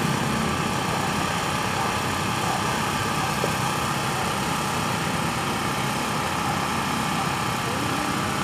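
An engine running steadily at an even pitch, typical of construction machinery idling.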